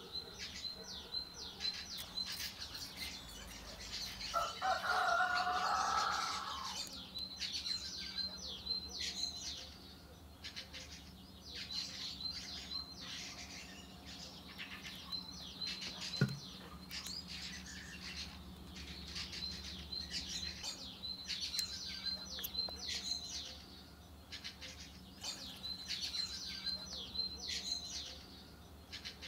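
Small birds chirping over and over. About five seconds in, a louder, lower two-toned bird call lasts about a second and a half.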